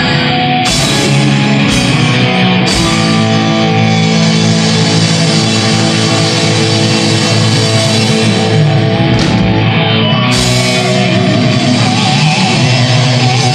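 Live heavy metal band playing an instrumental passage: distorted electric guitars and bass holding long chords over the drum kit, with crash cymbal hits three times about a second apart near the start and twice more after about nine seconds.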